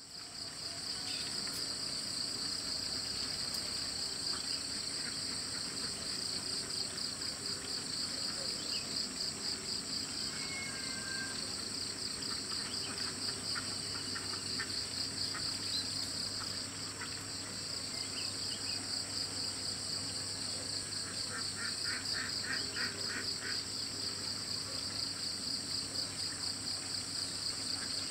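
Dawn chorus of insects trilling steadily in two high, pulsing bands, with faint scattered bird chirps and a short rapid run of clicks a little over twenty seconds in.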